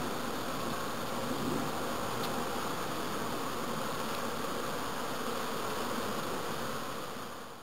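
Honeybees buzzing steadily around the fronts of their wooden hives, fading out near the end and then cutting off.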